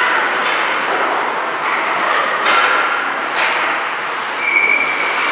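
Ice hockey game in play: a steady scraping of skates on the ice, with two sharp clacks about two and a half and three and a half seconds in, and a brief steady high tone near the end.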